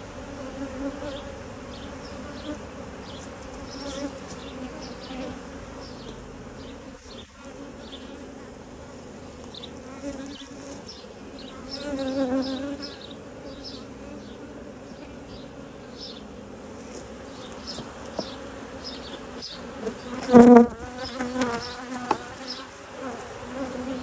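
Honeybees buzzing around an opened hive: a steady hum that swells twice, briefly about twelve seconds in and most loudly about twenty seconds in.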